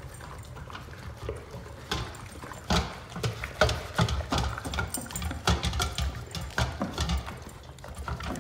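A dog eating raw food from a stainless steel bowl: irregular chomping and crunching with sharp knocks against the bowl, busiest in the middle of the stretch.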